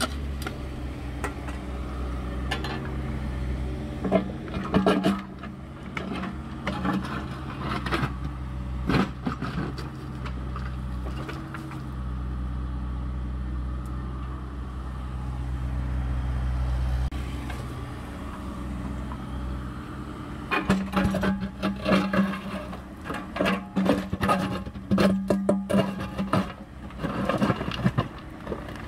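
Excavator running while it digs and loads spoil: a steady engine hum that grows louder for a few seconds in the middle, with repeated knocks and clanks of the bucket against dirt and stones, thickest near the end.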